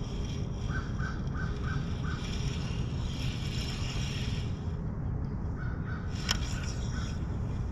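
A crow cawing in two quick runs of about five short, evenly spaced caws each, over a steady low background rush. A single sharp click comes about six seconds in.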